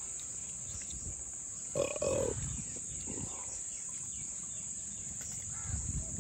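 Crickets chirring steadily and high-pitched, with a brief grunt-like voiced sound about two seconds in.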